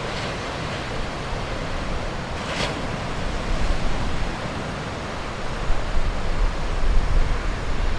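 Heavy typhoon surf: big waves breaking in a steady roar, with a brief hiss of spray about two and a half seconds in. Strong wind buffets the microphone, rumbling louder in gusts over the last few seconds.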